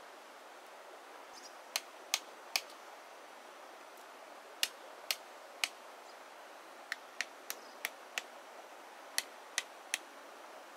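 About fourteen sharp, short knocks in quick runs of three to five, each run a third to half a second between strikes, over a steady hiss.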